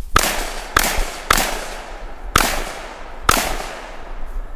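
Five gunshots: three in quick succession about half a second apart, then two more about a second apart, each followed by a long fading echo.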